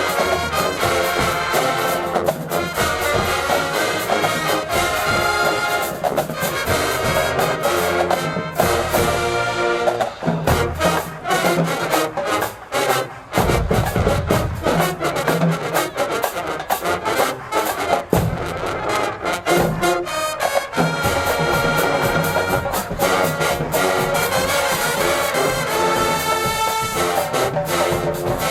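HBCU-style marching band playing loud, continuous brass music, trombones and trumpets carrying the tune over steady drum strokes.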